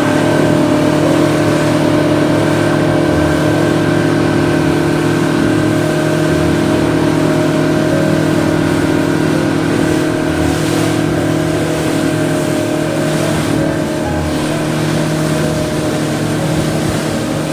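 Outboard motor running at a steady high speed as the boat planes, with water rushing past the hull.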